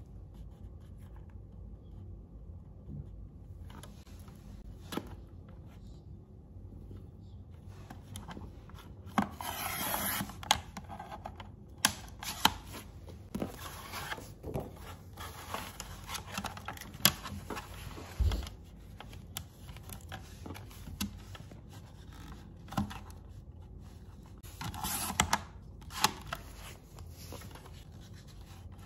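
Paper being handled and cut on a paper trimmer: sheets rustling and sliding, with scattered sharp clicks and taps from the trimmer. Two longer scraping swishes come about nine seconds in and again near the end.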